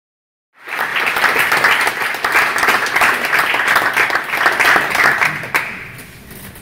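Audience applauding. The clapping cuts in abruptly after a moment of dead silence and dies away near the end.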